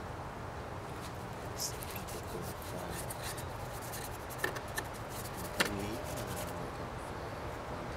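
Paintbrush rubbing and dabbing on a palette and a painted panel, with a few light clicks and taps about halfway through, over steady outdoor background noise.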